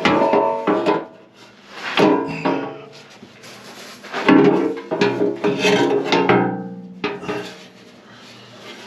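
Background music: sustained instrumental chords that start about every two seconds and fade away between them.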